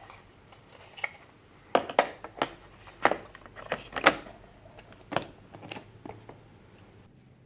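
Irregular plastic clicks and knocks as the robot vacuum's dust bin is handled, opened and snapped back into place. The loudest knocks come around two and four seconds in.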